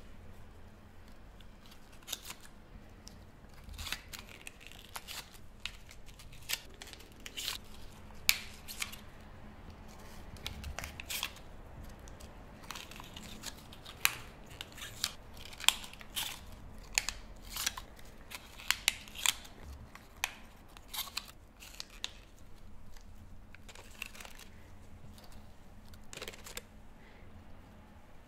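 Pleated paper cake cups crinkling and clicking as they are picked up, pressed open and set down by gloved hands, in irregular sharp rustles.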